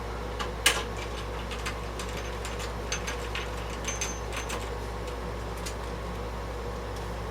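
Scattered light clicks and metallic taps from parts being handled inside an old AT computer case during disassembly, the sharpest about a second in and a quick run of them midway, a few with a brief high ring. A steady low hum runs underneath.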